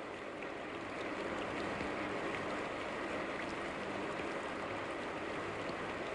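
Concert audience applauding, a steady even patter of many claps at the end of a live song.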